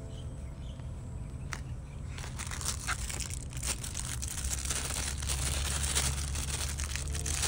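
Thin plastic packaging bag crinkling and rustling as a clear phone case inside it is lifted and handled. It starts about two seconds in and keeps up in quick, irregular crackles, after a few scattered clicks of paper and packaging.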